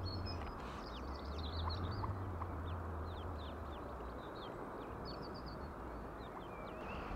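A brood of ducklings peeping: many short, high, downward-sliding cheeps, some in quick runs, over a steady low rumble.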